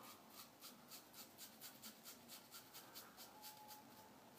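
Merkur 34C double-edge safety razor scraping through lathered stubble on the upper lip in short, rapid strokes, about five a second, faint and scratchy.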